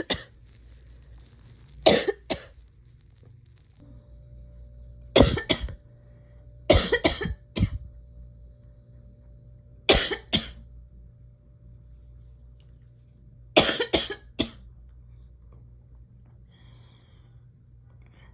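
A person coughing in six short bouts a few seconds apart, most of them two or three quick coughs in a row, stopping a few seconds before the end.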